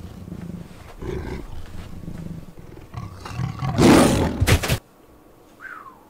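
A tiger growling in repeated low rumbles, building to a loud roar about four seconds in that cuts off suddenly.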